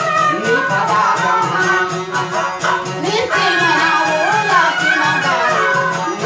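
Balochi sorud, a bowed fiddle, playing a gliding, ornamented melody over the steady rhythmic strumming of a dambura, a long-necked lute.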